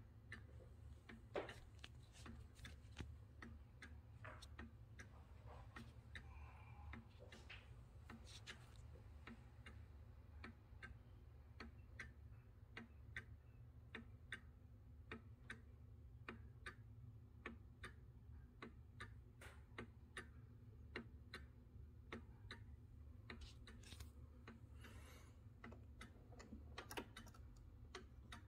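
Antique eight-day cuckoo clock's movement ticking steadily and faintly, an even run of light clicks from the escapement.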